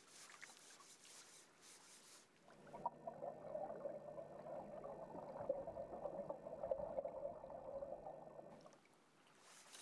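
Muffled underwater ambience: a crackling, gurgling water sound over a low steady hum, setting in suddenly a couple of seconds in and fading out near the end. Before it there is only a faint hiss.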